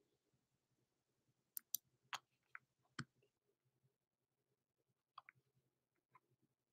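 A handful of sharp, scattered clicks at a computer over near silence: a quick cluster of about five from one and a half to three seconds in, then three more near five and six seconds.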